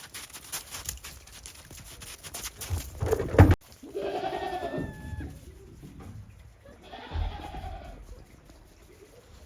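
Goats bleating: two long bleats of about a second each in the second half. Before them, a run of crackling clicks and a loud thump about three seconds in, which cut off suddenly.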